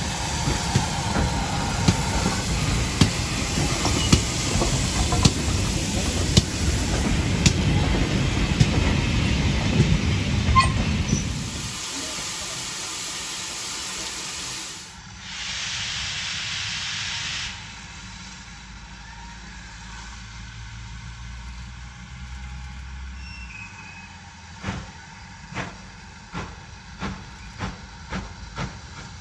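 GWR small prairie tank engine 5526 in steam at close range: steady steam hiss with sharp beats about once a second. The beats stop about 11 seconds in. A quieter stretch follows with a short burst of hiss, and near the end a run of sharp beats comes faster and faster.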